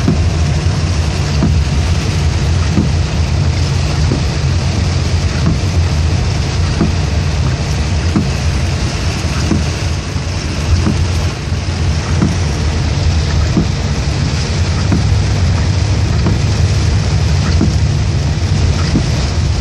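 A car driving in heavy rain: a steady low rumble from the road and engine under an even hiss of rain on the car.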